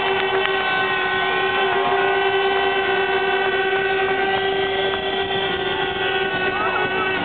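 Football crowd blowing many plastic stadium horns at once, a steady droning chord of held notes over the general roar of the stands.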